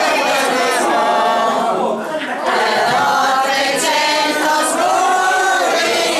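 A group of elderly women singing a traditional folk song together in unison, unaccompanied, with a brief break for breath about two seconds in.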